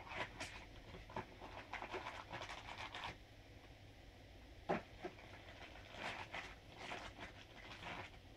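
White cardboard packaging being handled: faint rustling, scraping and light knocks, with one sharper knock about halfway through. A plastic bag crinkles near the end.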